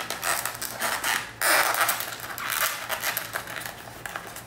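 Rustling, scraping and small plastic clicks of hands working inside a Ruroc Atlas 2.0 motorcycle helmet, pushing a headphone wire through behind the padded liner. The handling is loudest for about a second from about a second and a half in.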